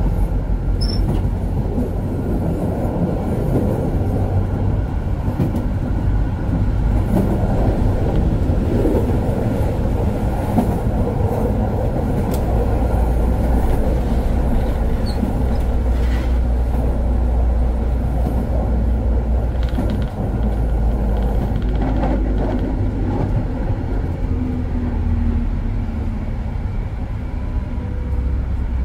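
Konstal 105Na tram running along the track, heard from the driver's cab: a steady rumble of wheels on rails and traction motors.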